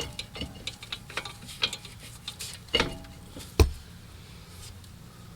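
Scattered metallic clinks and knocks as a steel bolt is fitted through the strut's lower mount and its nut started, with a sharper knock about three and a half seconds in.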